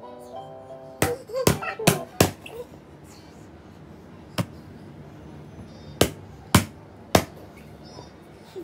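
A baby's hand slapping: eight sharp smacks in uneven groups, four close together in the first couple of seconds, one alone, then three more. Short baby vocal sounds come between the first slaps.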